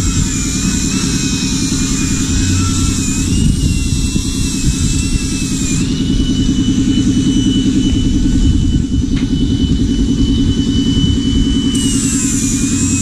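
Angle grinder working the edge of a rusty steel armour plate, its motor whine pulled lower and wavering under load with a hiss from the disc on the steel. About six seconds in it comes off the metal and runs free at a higher, steady pitch, then bites into the plate again near the end, over a steady low drone.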